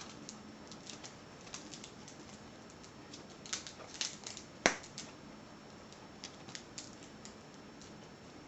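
Scattered light clicks and taps of a small tension wrench and the padlock's plastic packaging being handled, with one sharp, louder click just past halfway.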